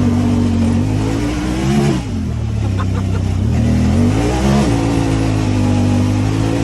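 Honda Talon 1000R side-by-side's parallel-twin engine running under load, rising in pitch and dropping back sharply twice, about two seconds in and again about four and a half seconds in, then holding steady.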